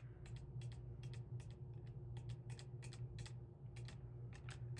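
Keys of an 1896/1897 Blickensderfer No.5 typewriter pressed and let go one after another, a quick irregular run of light clicks as each key is checked for level and spring return. A low steady hum runs underneath.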